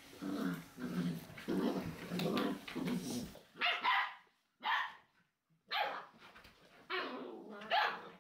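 Rough collie puppies play-fighting: a run of low puppy growls, then several short, sharp, high-pitched yips and barks.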